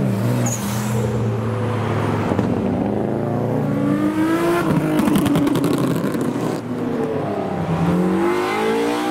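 Modified cars' engines running as they drive past, one revving and accelerating with its exhaust note rising in pitch about three seconds in, and another rising again near the end.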